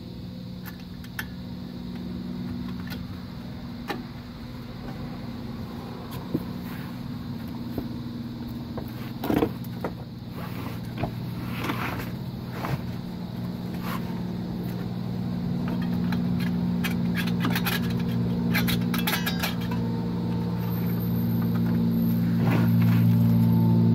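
Scattered metallic clinks and scrapes as drum brake shoes and their springs are handled and seated on the backing plate, with a cluster of quick clicks about three-quarters of the way through. Under them runs a steady low hum that grows louder toward the end.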